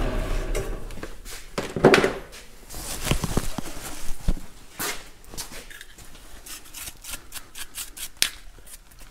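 Scattered clicks, taps and rubbing from hands handling a cast-iron casting and its loose chips on a milling machine table, with the mill's spindle stopped.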